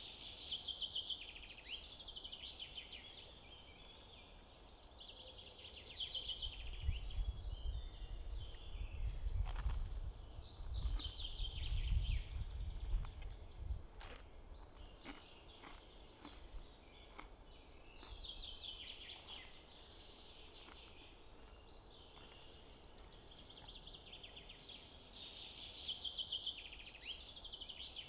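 Wild birds singing, repeating a short song phrase every few seconds. In the middle a low rumble rises and fades, with a run of short crisp crunches like bites into toasted bread.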